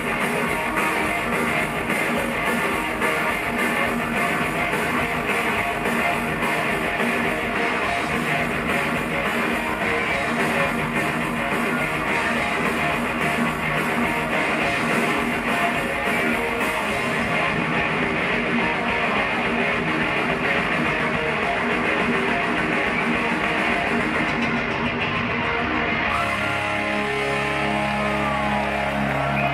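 Heavy metal band playing live at full volume: distorted electric guitars over a drum kit. Near the end the music shifts to long, low held notes.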